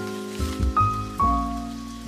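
Background instrumental music: struck notes that change every half second or so, each fading after it is sounded.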